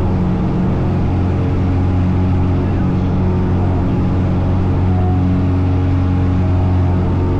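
Steady drone of a Cessna's piston engine and propeller, one constant pitch with no change in speed.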